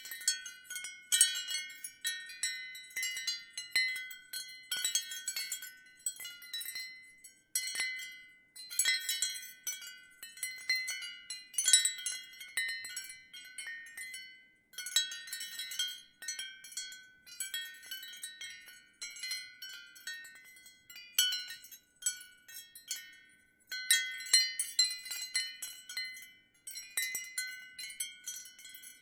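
Ceramic wind chime swinging in the wind, its pieces clinking against each other in irregular clusters of bright, high ringing tones, with a few brief pauses.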